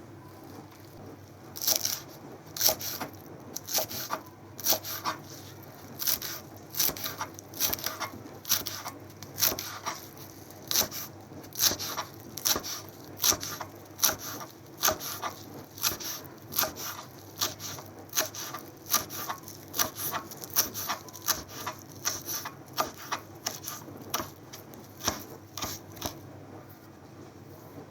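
A steady series of short rubbing, scraping strokes, about one to two a second, that stops near the end.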